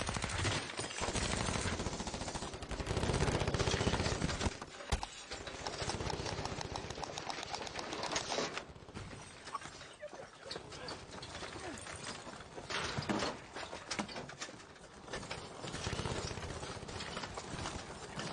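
Rifle gunfire in rapid bursts, thick for the first four seconds or so and then sparser, with footsteps running on dirt in between.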